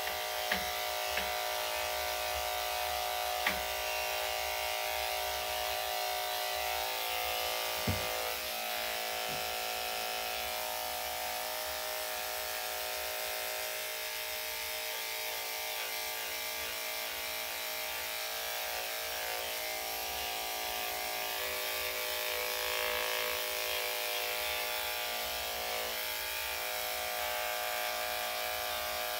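Electric dog grooming clippers with a #10 blade running steadily as they shave a Yorkshire terrier's coat short, with a couple of brief small clicks in the first eight seconds.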